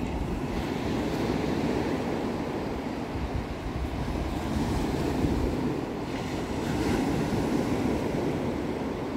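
Sea surf washing on the shore, a steady rush of waves that swells and eases gently, with wind buffeting the microphone.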